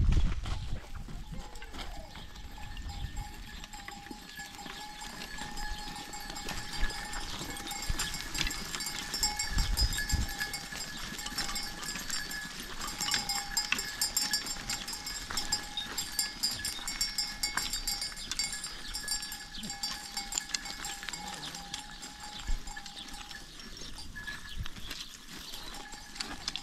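Bells on a herd of goats jingling and clanking steadily as the herd moves, with many sharp ticks over the ringing.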